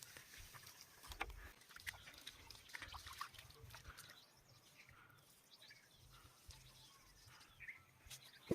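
Faint outdoor ambience: scattered small clicks and knocks, with a few faint, short animal calls.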